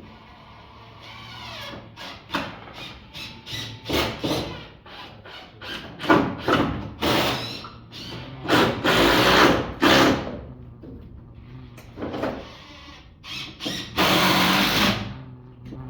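Power drill-driver driving screws into wood in a series of short bursts, with two longer runs about halfway through and near the end.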